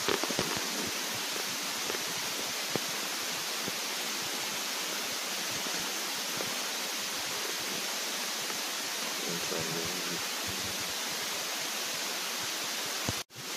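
A steady, even hiss with a few soft handling knocks near the start.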